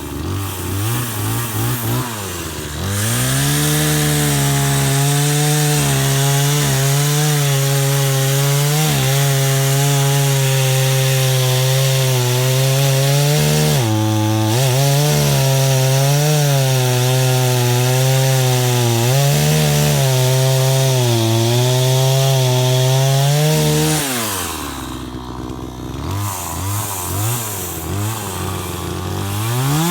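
62cc two-stroke gas chainsaw blipped a few times, then held at high revs for about twenty seconds while cutting wood. Its pitch sags now and then under the load, with a deeper dip about halfway through. Near the end it drops back to short revs.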